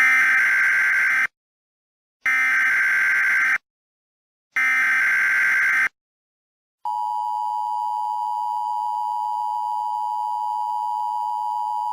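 Emergency Alert System signal: three harsh screeching digital data bursts a second apart, then, about 7 s in, the steady two-tone EAS attention signal holding.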